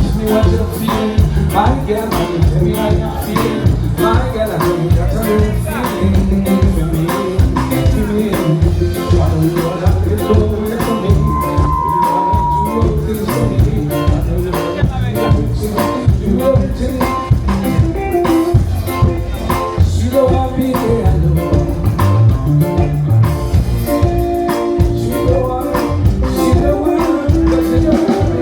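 Loud band music with a steady drum and bass beat and some singing, played during a sound check.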